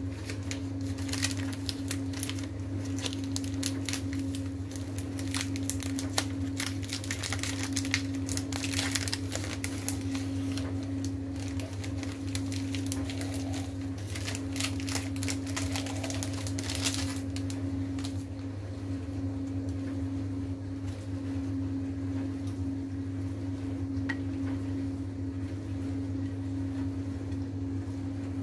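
Paper-and-foil crispbread packet crinkling and rustling as it is handled and opened, in dense bursts through the first half that then thin out. A steady low hum with a clear tone runs underneath.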